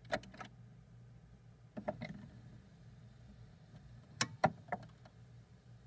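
Record player spinning a 45 rpm single before the music starts: a steady faint low hum with a few scattered sharp clicks and knocks, the loudest cluster about four seconds in.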